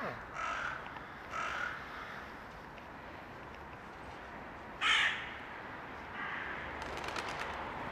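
Crow cawing: short caws about a second apart, then a louder, sharper sound about five seconds in.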